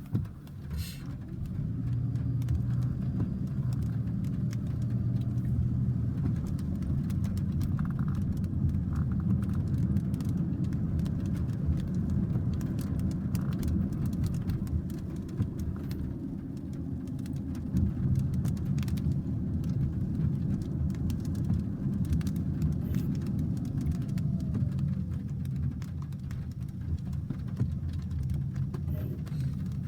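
Heavy rain in a thunderstorm downpour: a steady low roar with many scattered sharp taps of drops, building up over the first two seconds.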